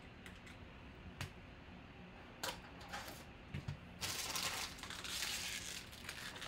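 A few light clicks of cards in plastic sleeves being handled, then about two seconds of rustling and crinkling as wrapped packs of football cards are pulled from the hobby box.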